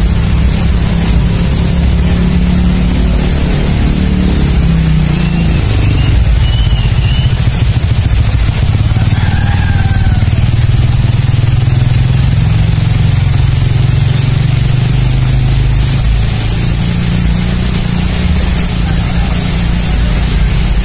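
An engine running steadily at close range, its pitch shifting a few times, with a few short high chirps partway through.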